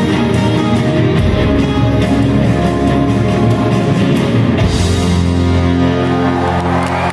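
Live rock band with electric guitars and drum kit playing loudly, closing the song: busy playing gives way, a little under five seconds in, to a crash and one chord held and left ringing.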